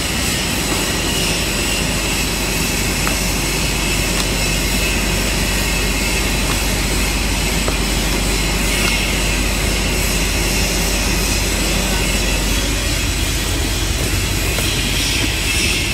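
Ballpoint pen shrink-wrapping machine and its heat shrink tunnel with mesh conveyor running steadily, with a constant low hum and a few faint ticks.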